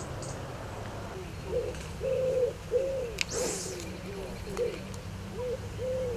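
A pigeon cooing: a run of low, repeated arching coos starting about a second in. A brief hiss sounds about halfway through.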